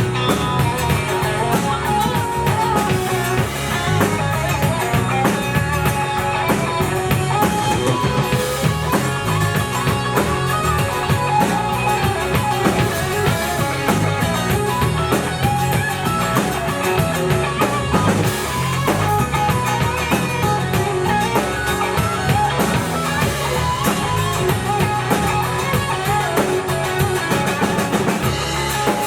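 Live rock band playing loud: guitar lines over a drum kit and bass with a steady beat.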